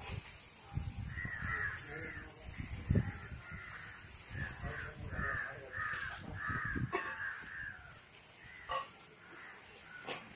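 Crows cawing over and over, about a dozen harsh caws that thin out after about seven seconds, with one more near the end. Under them is a low rustling of coconut palm fronds as an elephant drags and handles them.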